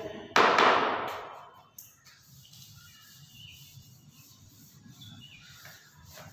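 A chalkboard duster wiping across a blackboard: one loud swish about a third of a second in that fades out over a second or so, then faint rubbing.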